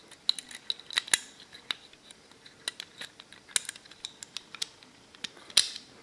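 Irregular small metal clicks and light scrapes as a TT Tokarev pistol's recoil spring and guide rod are worked into the steel slide by hand. The louder clicks come about a second in and near the end.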